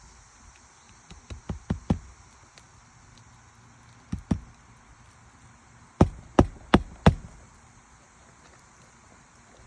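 Hammer driving roofing nails into a shingle: a run of four taps getting harder about a second in, two more a little before halfway, then four hard blows about three a second past the middle.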